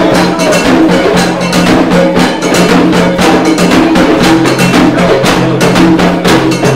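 Loud music with fast, even drumbeats, about four to five strikes a second, over sustained low notes that change pitch in steps. It starts suddenly just before and stops abruptly just after.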